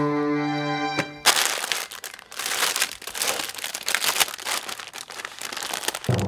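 Thin plastic spinach bag crinkling and rustling loudly as it is picked up, opened and shaken, after a sustained music drone that cuts off about a second in; the music comes back at the very end.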